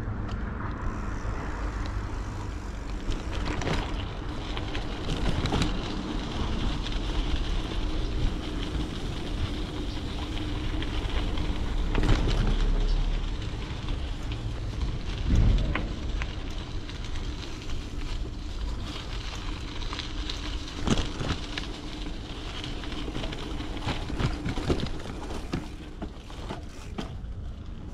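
Bicycle riding along: tyre noise on pavement and a gravel path with a crackling crunch, wind rumbling on the handlebar camera's microphone, and a few clicks and rattles from the bike.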